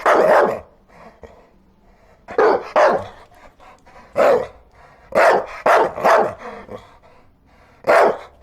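Dog barking repeatedly, about eight loud barks, some single and some in quick pairs, with short pauses between them.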